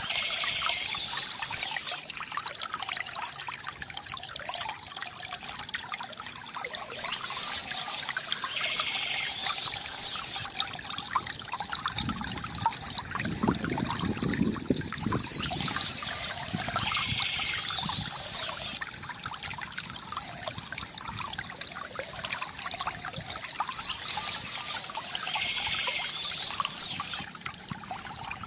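A small stream trickling and splashing steadily, with birds singing in bursts that come back about every eight seconds. A deeper gurgle of water swells about halfway through.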